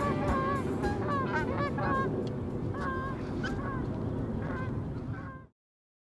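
Geese honking, a run of repeated calls, several overlapping at times. The sound cuts off suddenly about five and a half seconds in.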